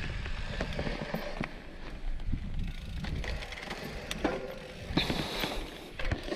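Mountain bike clicking and rattling on a dirt trail: irregular ticks and knocks from the drivetrain and frame over a low rumble.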